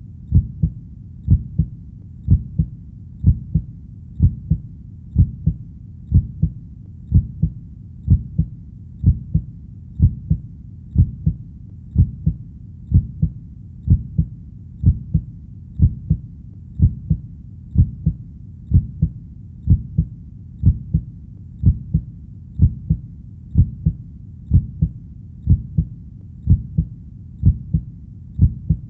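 A heartbeat: low double thumps (lub-dub) in a steady, even rhythm of about one beat a second, over a faint low rumble.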